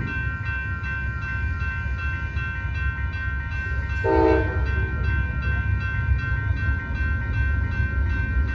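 Railroad crossing warning bell ringing steadily over a low rumble. About four seconds in, a short horn blast sounds for about half a second.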